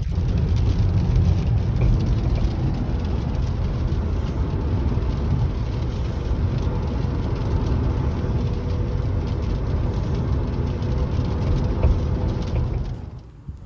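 A car engine running steadily, strong in the low end. It fades out near the end.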